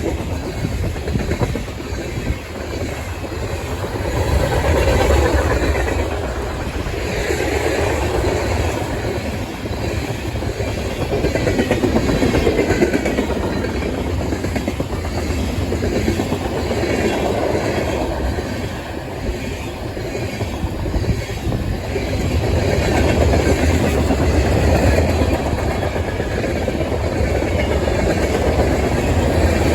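Freight train passing, its wheels rolling on the rails, the noise swelling and easing every few seconds as the cars go by.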